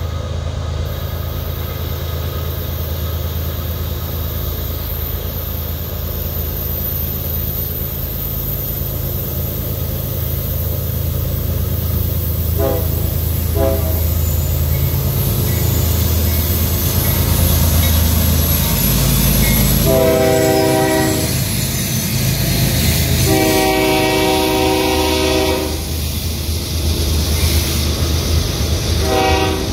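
Diesel locomotives of a CSX freight train rumbling past, growing louder as they come close, then the clatter of double-stack container cars rolling by. The locomotive air horn sounds several times: two faint short toots, then a longer blast, a long blast, and another starting at the end.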